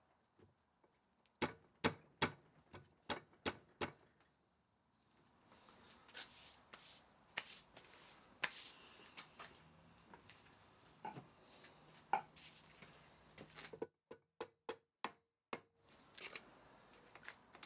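Sharp clicks and light taps from hands and tools working on a gearbox casing. A quick run of about eight clicks comes a second or two in, softer scrapes and taps follow, and another run of clicks comes near the end.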